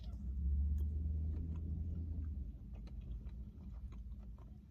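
Close-up chewing of chicken wings, with many small wet mouth clicks. A low rumble sits under the first two seconds or so.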